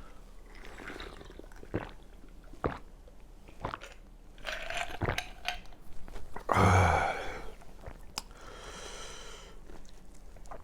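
Close-up mouth sounds of a person eating steamed pork and kimchi: wet chewing with sharp lip smacks and clicks. About six and a half seconds in comes a short, loud voiced grunt.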